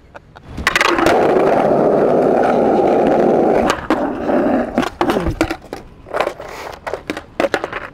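Skateboard wheels rolling loud and steady over rough street asphalt for about three seconds. The rolling then drops away and a string of sharp clacks and knocks from the board follows.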